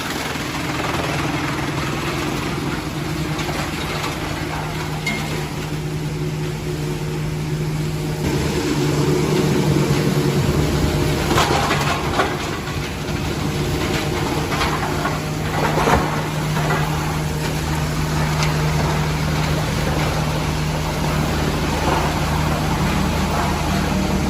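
Wood chipping and grinding machinery running with a steady motor hum; the hum shifts about eight seconds in, and sharp cracks and knocks come several times around the middle as wood is crushed.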